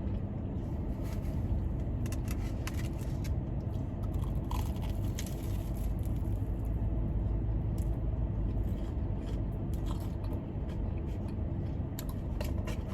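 Car air conditioning running with a steady low hum, with scattered small clicks and crunches of eating over it.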